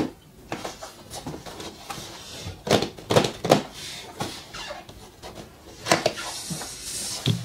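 Cardboard shoebox handled and opened on a wooden table: several knocks and scrapes as it is set down, lifted and turned, then the lid coming off with a rustle of the packing inside.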